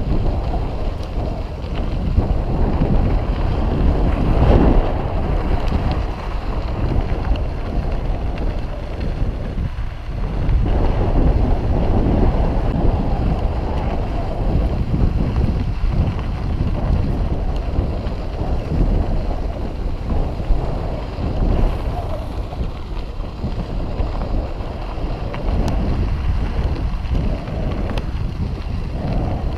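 Wind buffeting the microphone of a handlebar-mounted camera on a moving mountain bike, over the rumble of the bike's tyres rolling on a dirt trail. The noise swells and dips as the ride goes on.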